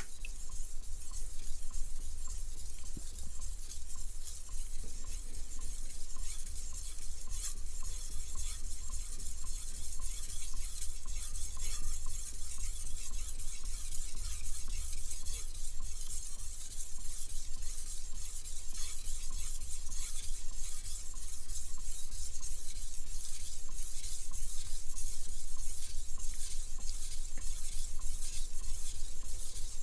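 Chef's knife edge scraping back and forth over a wet whetstone in a steady run of light, smooth strokes, with a low steady hum underneath. This is the right side of the edge being ground to raise a micro burr.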